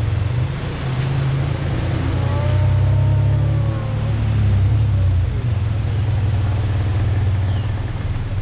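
Steady low rumble of a car's engine and road noise, heard from inside the moving vehicle.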